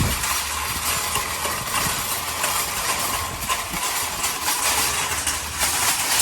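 Shopping cart rolling along, its wheels clunking and the wire basket rattling in a continuous clatter.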